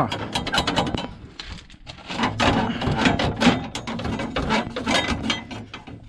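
Rattling metal clicks and scraping as the tractor's front air-conditioning condenser core is pulled out of the radiator stack, in two bursts with a short pause about a second in.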